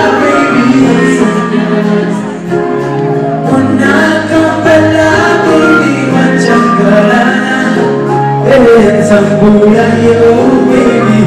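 Live band music with a man singing lead: held bass guitar notes and keyboards under the vocal, with backing voices.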